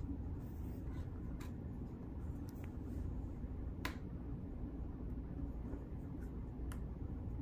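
Hands working at a cord, with a few light, sharp clicks scattered through a steady low background rumble.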